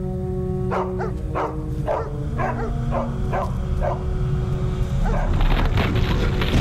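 Dogs barking, about two sharp barks a second, over held music notes. From about five seconds in, a loud rushing noise builds up.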